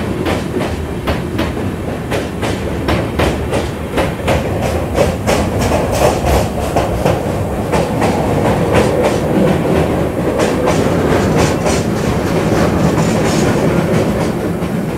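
Passenger train running at speed, heard from an open coach door: a steady rumble with a rapid, irregular clickety-clack of wheels over rail joints.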